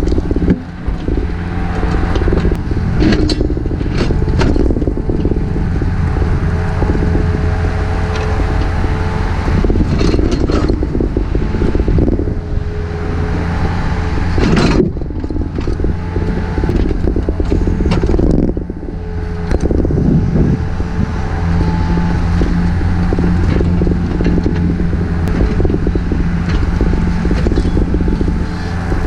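Takeuchi TB153FR compact excavator's diesel engine running steadily under load, with the bucket scraping and crunching through dirt and broken material.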